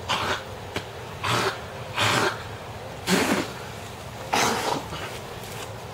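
A man coughing hard from a throatful of ground cinnamon, five harsh separate coughs spread a second or so apart.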